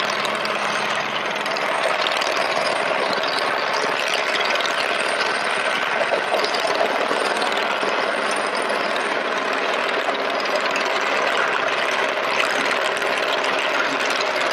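Helicopter flying low overhead: steady rotor and engine noise that holds at the same level throughout.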